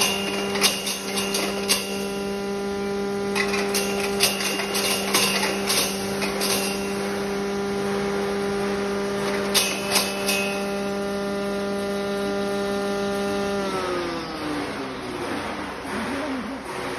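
Mini turmeric grinder running with a steady hum while hard dried turmeric pieces crack and rattle in the grinding chamber in several short clusters as they are fed in. About 14 seconds in the hum falls steadily in pitch as the machine winds down.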